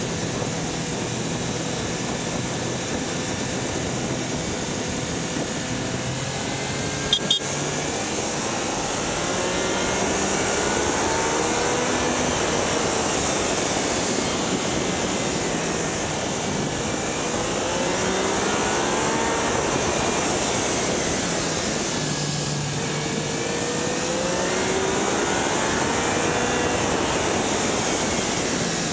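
A Yamaha Niken being ridden on the road: wind and road rush on a camera mounted low at the front wheels, with the motorcycle's engine rising in pitch several times as it pulls. Two sharp clicks about seven seconds in.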